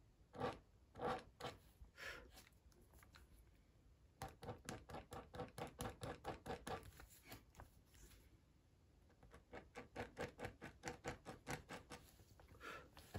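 Slice ceramic-blade pen cutter scratching quick, short strokes into coloured pencil on hot-press watercolour paper, lifting out light fur. A few separate strokes come first, then two runs of about six strokes a second with a pause between. The blade is scratching into the paper itself rather than just taking off the top layer of pencil.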